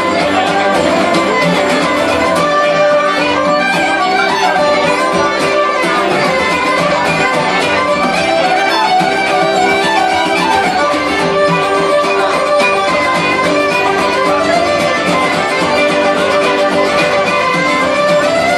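A traditional Irish tune played live by a small band: fiddle carrying the melody over strummed acoustic guitar, with uilleann pipes and bodhrán playing along.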